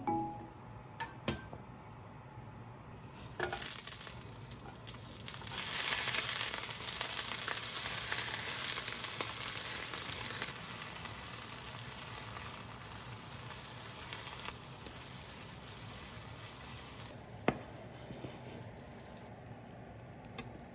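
Food sizzling in a frying pan: a hiss that comes in a few seconds in, is loudest for a few seconds, then eases and stops, with a few sharp clicks along the way.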